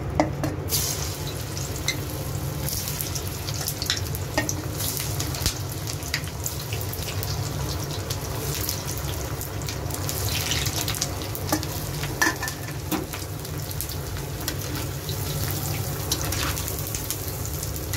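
Halved cauliflower pakoras sizzling and bubbling in hot oil in an iron kadhai on their second fry. The sizzle starts about a second in as the first pieces are dropped in, with scattered clicks and splashes as more pieces go in.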